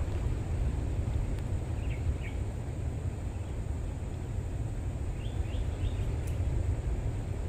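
Steady low outdoor rumble with faint bird chirps: a short run of them about two seconds in and another a little past the middle. A single sharp click comes near the end.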